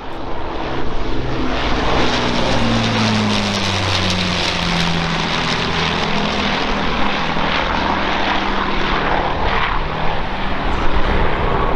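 Avro Lancaster bomber's four Rolls-Royce Merlin piston engines running as it flies past low overhead, the engine pitch dropping about two to five seconds in as it passes.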